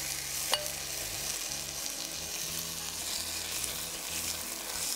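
Dry basmati rice sizzling in hot oil with whole spices in an enamel pot as it is stirred with a spatula, with a sharp tap about half a second in.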